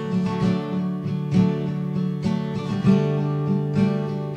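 Background music: acoustic guitar strumming chords in a steady rhythm, with no singing.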